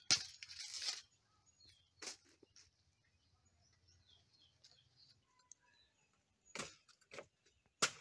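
Banana leaves and stalk rustling as a bunch of green bananas is pulled down, then two sharp chops near the end as a knife cuts through the bunch's stalk. Faint bird chirps in between.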